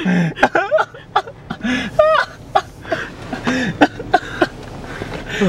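Several people's voices inside a car: short exclamations, chuckles and coughs, with no clear words, broken by a few sharp clicks.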